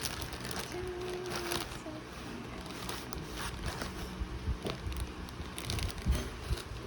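Scattered light clicks and knocks of objects being handled, over a steady low background hum, with a brief steady tone about a second in.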